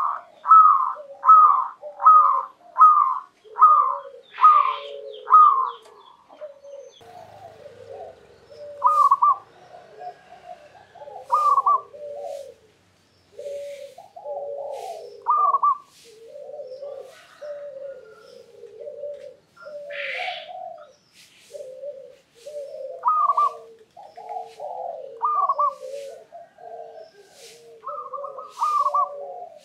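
Zebra dove (perkutut) cooing: a quick, evenly spaced run of coos for the first six seconds, then a looser phrase of higher and lower coos that continues to the end.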